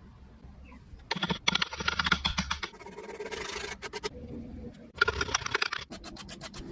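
Rapid scraping and rubbing strokes of a hand tool on wood, in two spells of about a second and a half and under a second, with a steadier hiss and scattered clicks between them.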